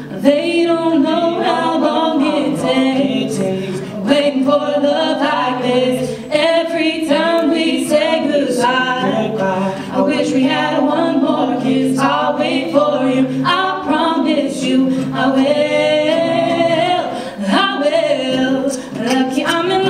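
A woman and a man singing a slow love song as a duet, to a strummed acoustic guitar, with no breaks in the singing.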